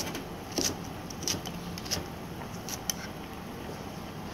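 Chef's knife cutting through cabbage and knocking on a plastic cutting board, about six short cuts spaced roughly two-thirds of a second apart, stopping about three seconds in.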